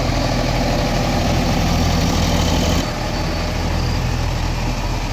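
Heavy diesel engine of earthmoving or farm machinery running steadily with an even low note; about three seconds in the sound drops a little and loses some of its hiss.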